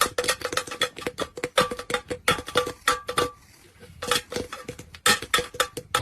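Music of quick, plucked staccato notes in an uneven run, thinning out briefly a little past the middle.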